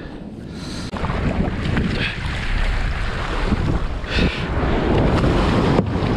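Wind rushing over the microphone, with water sloshing against a kayak as it is paddled on open sea. The noise gets louder about a second in.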